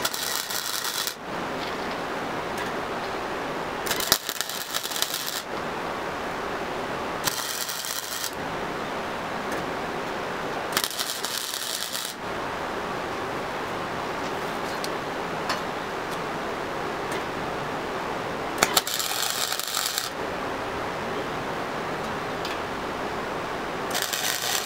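Flux-core wire-feed welder arc crackling and sputtering as short welds are laid on a square-tube go-kart frame: six bursts of about a second each, with a longer pause in the middle, over a steady hiss.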